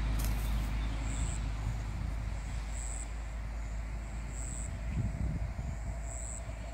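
Outdoor background: a steady low rumble with a short, high chirp repeating about every second and a half.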